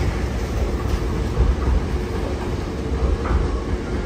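Hankyu electric train moving through the station, a steady low rumble with some clickety-clack of wheels on rail joints.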